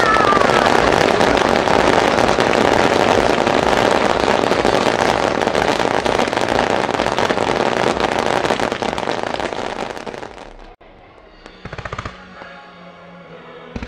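A dense fireworks barrage: a few falling whistles at the very start, then the continuous crackle and bangs of many shells and glittering stars bursting at once. The din cuts off suddenly about eleven seconds in, leaving a quieter background with a couple of single bangs.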